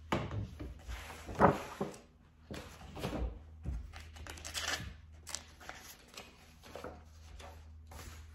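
Paper handling: a cardboard file folder moved and knocked against a desk, with the loudest knock about one and a half seconds in, then sheets of paper rustled and leafed through in short, irregular bursts.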